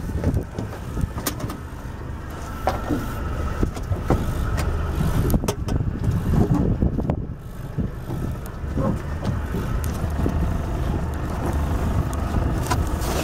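A steady low motor hum with scattered knocks and clicks over it.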